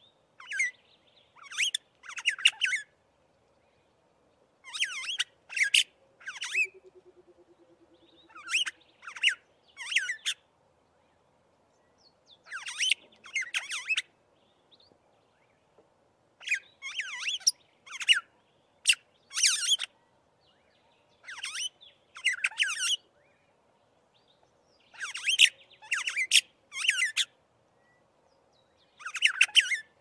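Aplonis starling calling: clusters of sharp, high, squeaky chattering notes, repeated every second or two with short pauses.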